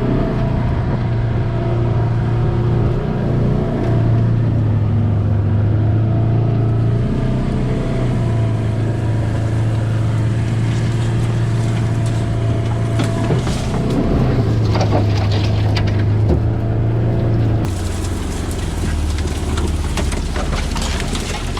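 Side-by-side UTV engine running at a steady pace while driving through brush, with branches knocking and scraping against the vehicle a few times past the middle. Near the end the engine note drops lower and a hiss comes in.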